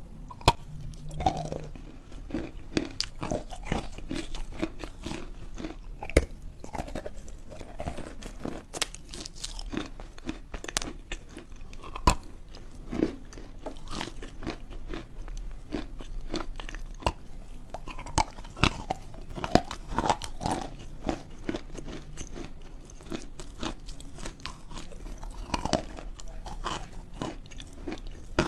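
Close-miked biting and chewing of pieces of Dvurechye natural chalk: a continuous run of dry crunches and crackles, with a few louder snaps as pieces break.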